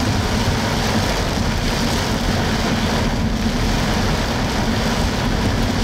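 Heavy rain drumming on a car's roof and windshield, heard from inside the cabin as a loud, steady hiss. A steady engine hum runs underneath.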